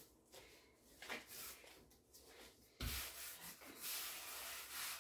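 Gloved hands kneading a soft flour-water-oil dough on a floured wooden board: soft rubbing and pressing strokes. About three seconds in there is a thump, then a steadier rubbing hiss as a palm sweeps across the floured board.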